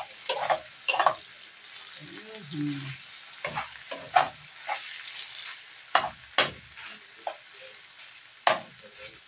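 Strips of beef sizzling as they brown in a nonstick frying pan, with a steady hiss. A metal spoon stirring them scrapes and clicks against the pan about seven times.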